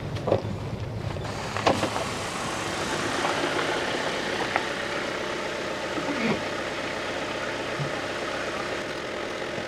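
Campervan on the move: steady engine and road noise, with a few faint clicks and knocks.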